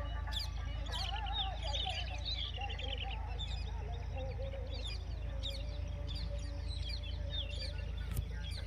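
Many small birds chirping in quick, overlapping calls, with a rooster's crow trailing off in the first couple of seconds and a low steady rumble underneath. A single sharp click sounds near the end.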